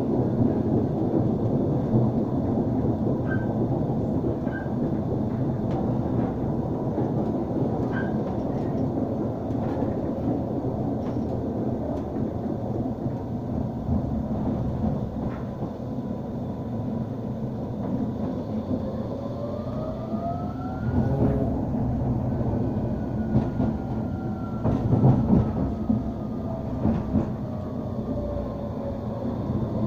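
Inside a running Bombardier Incentro tram: a steady rumble of the wheels on the rails. Past the middle, the traction motors' whine rises in pitch as the tram picks up speed, then falls away slowly as it slows, with a few knocks near the end.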